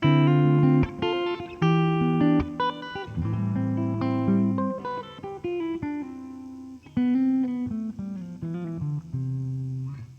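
Grote ES-335-style semi-hollow electric guitar being played: struck chords left to ring, with picked single-note lines between them.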